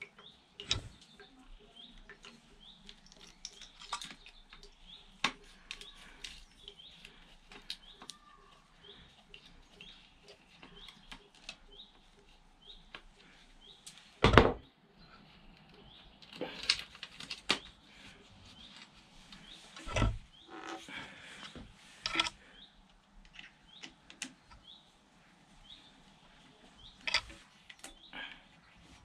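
Scattered clicks and knocks of hand tools and metal hose clamps being worked on a motorcycle's coolant hoses, with a sharp knock about 14 seconds in as the loudest. A small bird chirps again and again in the background, most steadily through the first half.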